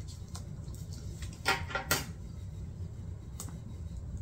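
A few small clicks and clinks of a leather handbag's silver metal clasp hardware being handled as a plastic tag is worked off it: two about a second and a half and two seconds in, another near the end. Over a steady low hum.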